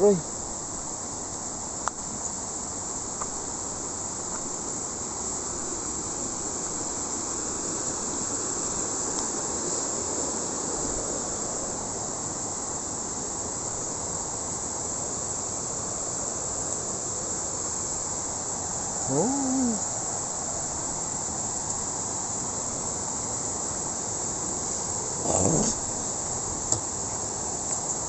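Steady high-pitched chorus of insects, with two short calls breaking in, about two-thirds of the way through and again near the end.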